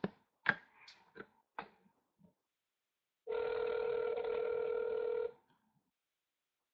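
A few short clicks, then one two-second burst of a telephone ringback tone: the outgoing call ringing on the other end.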